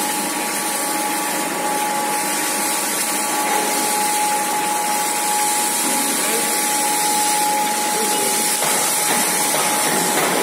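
Seed magnetic separator machine running: a steady whirring hiss with one constant high whine in it.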